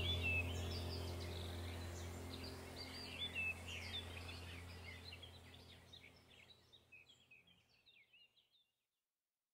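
Birds chirping over a low steady drone, all of it fading out to silence about seven seconds in.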